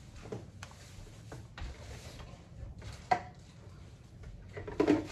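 Quiet kitchen handling noises: scattered light clicks and knocks of food packaging and containers being moved on a counter, with one sharper click about three seconds in.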